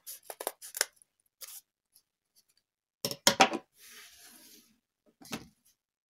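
Scissors cutting through the cardboard edge of a heart covered in glitter foam sheet, trimming off the excess. There are a few short snips in the first second and a louder cluster of sharp sounds about three seconds in.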